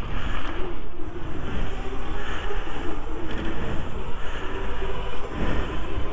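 Wind buffeting the microphone of a camera on a moving e-bike, over the rumble of its tyres rolling from gravel onto a wooden bridge deck. A faint wavering whine runs underneath.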